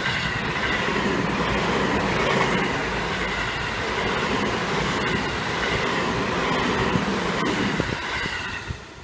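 Seibu Railway 20000 series electric train passing at close range: a loud, steady rush of wheels on rail with a faint high whine. It fades quickly near the end as the last car goes by.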